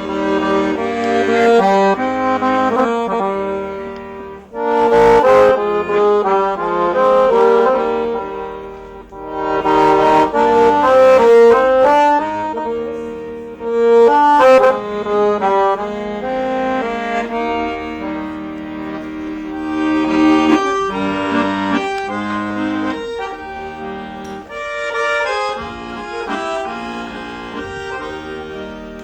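Instrumental music: a tune of held chords under a moving melody, swelling and easing in loudness, with no singing.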